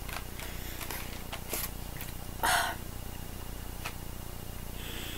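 Faint mouth sounds of a person chewing a chewy fruit candy, with a few soft clicks and a short breath about two and a half seconds in, over a steady low background hum.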